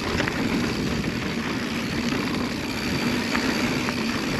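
Mountain bike descending a dirt singletrack: steady wind rush over the action camera's microphone and the tyres rolling on dirt, with a few light clicks and rattles from the bike.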